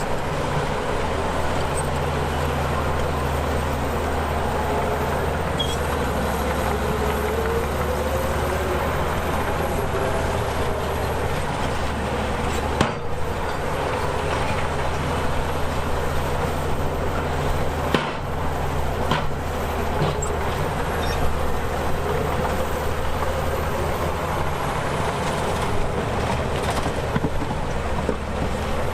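Crawler bulldozer's diesel engine running steadily under load, with a wavering squeal and a couple of sharp clanks, about halfway through and a few seconds later.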